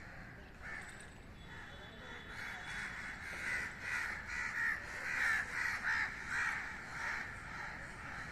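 Many crows cawing at once, a dense overlapping chorus of harsh calls that grows loudest in the middle. The crows are mobbing around a dead crow, a typical alarm reaction.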